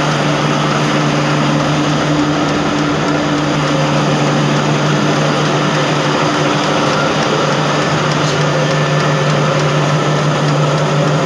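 Automatic atta (wheat flour) mill plant machinery running: a loud, steady mechanical drone with a constant low hum from its electric motors and sifter.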